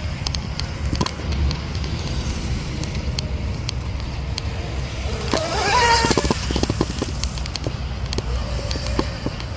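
Twin brushless electric motors of a home-built RC speed boat whining. The whine rises sharply in pitch and loudness about five seconds in and then falls away, over heavy wind buffeting on the microphone.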